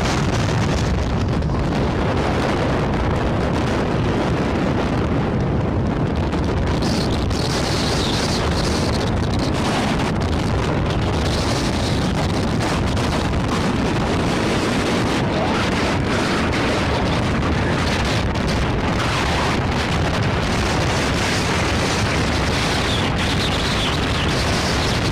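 Strong wind buffeting the microphone over a steady low rumble from a departing cargo jet's engines.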